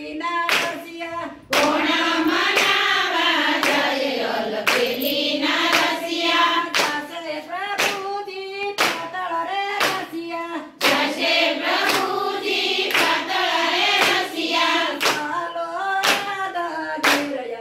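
A group of women singing a Gujarati Krishna bhajan together, clapping their hands in a steady beat, with claps coming a little under a second apart. The singing breaks briefly about a second and a half in, between lines.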